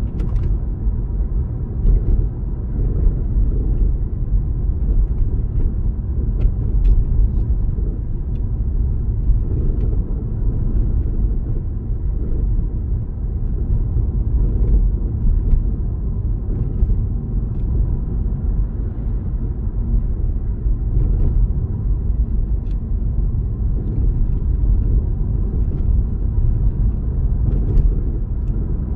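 Steady low rumble of a car on the move, its road and engine noise heard from inside the cabin, with a few faint small clicks.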